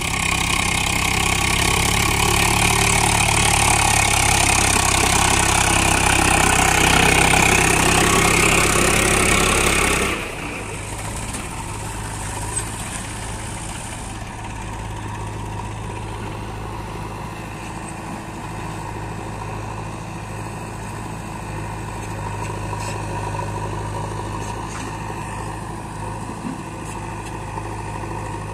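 Diesel tractor engines running under load as they haul fully loaded trolleys, loud for the first ten seconds or so, then dropping suddenly to a quieter, steady engine sound.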